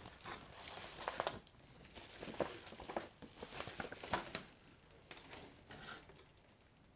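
Paper and cardboard packaging being handled and gathered up: irregular crinkling and rustling with a few light knocks, dying down after about four and a half seconds.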